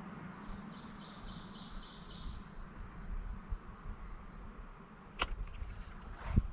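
A steady high insect drone, with a bird singing a quick run of about nine repeated notes over roughly two seconds near the start. Two sharp clicks come near the end.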